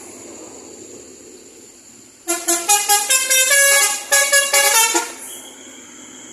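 Basuri telolet horn on a bus playing a quick tune of changing notes for about three seconds, starting about two seconds in.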